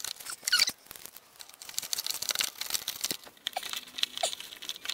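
Hands handling electrical wiring: light rustling and scattered small clicks, with a louder rustle about half a second in.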